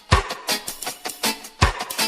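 Instrumental music with drums keeping a steady beat, a deep kick drum about every second and a half with lighter hits between.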